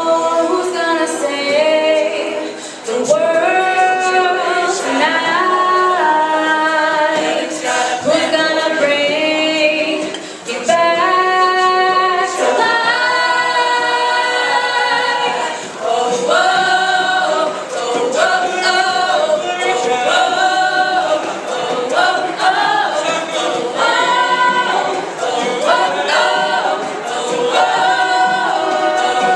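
A cappella vocal group singing in close harmony with voices only, the chords held and shifting without clear lyrics.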